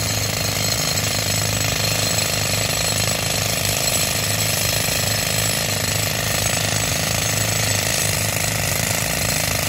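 Hand-held pneumatic rock drill hammering continuously into hard rock, run on air from a tractor-driven compressor, with a steady low hum underneath.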